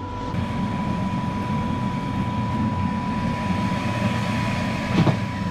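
Busy street-market background: a steady low rumble with a constant thin hum tone running through it, and a single short knock about five seconds in.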